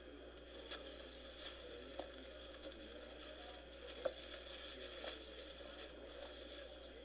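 Faint crackling and clicking of dry twigs and branches being handled and pulled while fruit is picked from a leafless tree, with one sharper snap about four seconds in.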